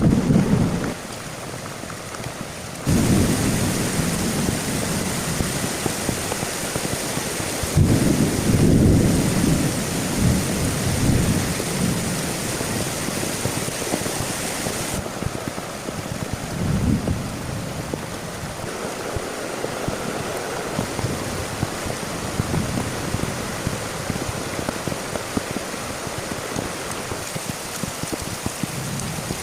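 Heavy rain falling steadily during a thunderstorm, with deep rolling rumbles of thunder that swell and fade several times, loudest about a third of the way in.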